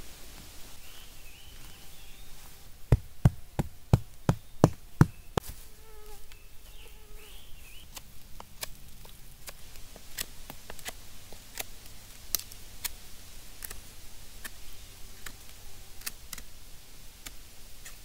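A quick run of about eight hard knocks, then a bushcraft knife shaving the end of a wooden stake, one sharp cut about every half second. Insects buzz and a bird chirps in the background.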